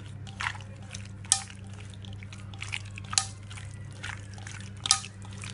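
Raw chicken pieces squelching as they are squeezed and mixed by hand with spice powders and ginger-garlic paste in a bowl: irregular short wet clicks and squishes, a few louder than the rest, over a steady low hum.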